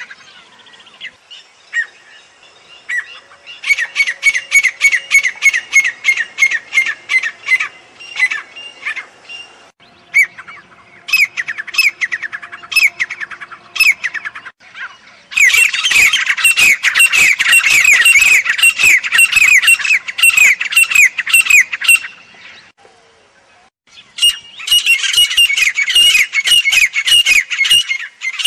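Francolin (teetar) calling loudly in bouts of rapid, harsh, falling notes repeated several times a second, the longest bout about halfway through, with short pauses between bouts.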